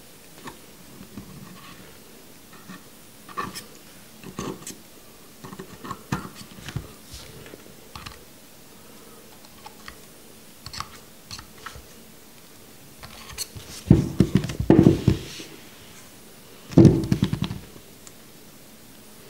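Close handling sounds of wicking a rebuildable vape atomizer: cotton rustling as it is pulled and tucked, with scattered light clicks and ticks of small metal parts. Two louder spells of handling noise, one about two-thirds of the way through and one shortly before the end.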